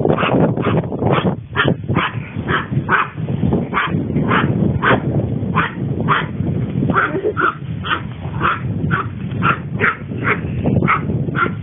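Long-coat chihuahua barking in a steady run of short, high yaps, about two a second.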